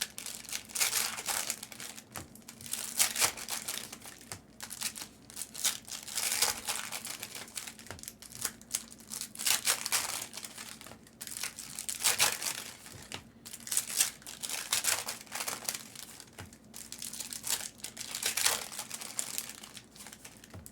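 Plastic trading-card pack wrappers crinkling and tearing as card packs are opened by hand, in irregular bursts.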